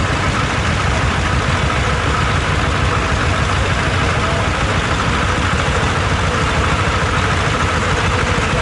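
T-25 tractor's two-cylinder air-cooled diesel running steadily under load while pulling a plough, an even, fast chug with no change in speed.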